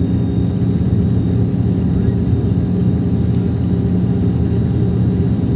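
Steady low drone of engine and road noise inside a vehicle cruising at highway speed.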